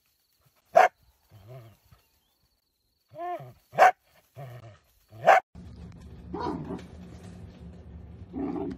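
A dachshund barking: three short, sharp barks, about a second, about four seconds and about five seconds in, with softer yelps between them. From about halfway a steady low hum follows, with two softer sounds.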